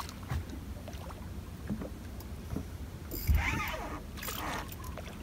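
Water sloshing against the hull of a small fishing boat over a steady low rumble, with one louder splash and thump a little past three seconds in.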